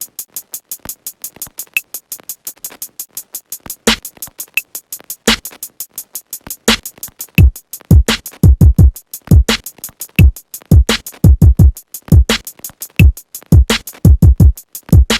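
Hip-hop beat played loud through a subwoofer: fast, even hi-hat ticks with sparse snare hits, then deep bass hits that slide down in pitch. From about seven seconds in, the bass hits come thick and loud.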